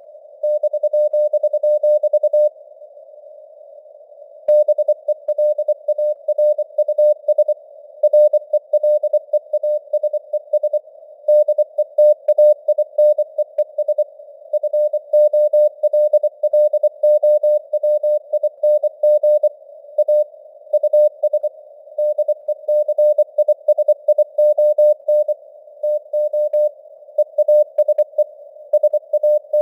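Morse code (CW) sent at 24 words per minute: a single mid-pitched tone keyed in quick dots and dashes over a faint hiss of simulated radio band noise, as heard through a narrow receiver filter. A pause of about two seconds falls between characters a couple of seconds in.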